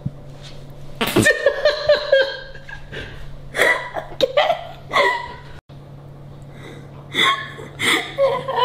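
A woman laughing uncontrollably in three fits of high-pitched bursts, with short pauses between them.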